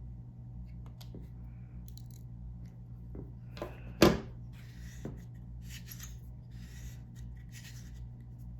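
A multitool being handled and worked on: scattered small clicks and light scraping, with one sharp click about four seconds in.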